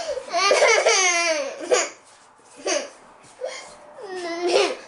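A three-year-old girl crying in a tantrum: a long, high wail, a few short sobs, then another long wail near the end.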